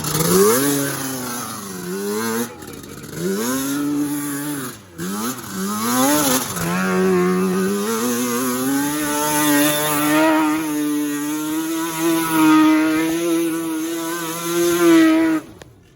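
Off-road vehicle engine revving up and down several times, then held at steady high revs for about eight seconds before it cuts off suddenly near the end.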